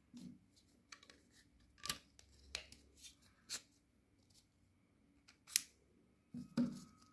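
Light, sharp clicks and taps of hard plastic pipe-fitting parts being handled and slid onto plastic pipe, about eight irregular clicks, the loudest about five and a half seconds in.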